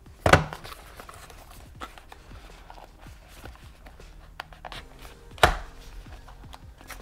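Hands handling a paperboard retail box and picking at its end flap: small cardboard rustles and clicks, with two sharp knocks, one just after the start and one about five and a half seconds in.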